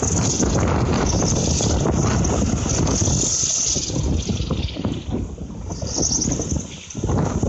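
Storm-force wind buffeting the microphone in heavy gusts, with a high hiss that swells twice; the gusts ease briefly about five seconds in and again near the end.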